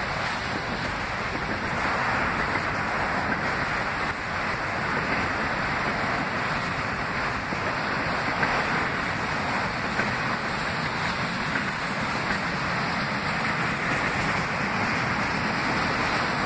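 A freight train of autorack cars rolling past, giving a steady rushing of steel wheels on rail.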